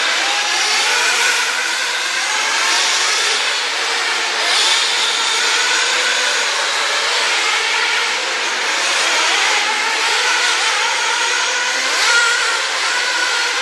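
Several radio-controlled off-road race cars running on the track, their high-pitched motors overlapping and rising and falling in pitch as they accelerate and brake.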